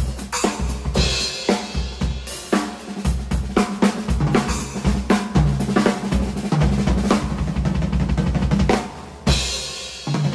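Acoustic drum kit with Sabian cymbals played in a busy groove of bass drum, snare and hi-hat, finishing on a loud cymbal crash about nine seconds in that rings out.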